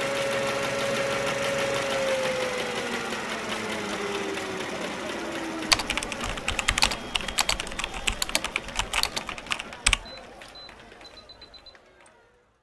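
Glitch-style logo intro sound effects: a held tone sliding down in pitch over a noisy hiss, then rapid stuttering clicks, a sharp hit about ten seconds in, and a fade out.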